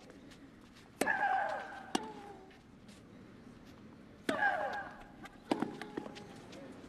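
Tennis rally from a match broadcast: sharp racket-on-ball strikes, about five of them, with a loud high-pitched shriek from the hitting player on two shots. The shrieks come about a second in and again past four seconds, each falling in pitch and lasting about a second.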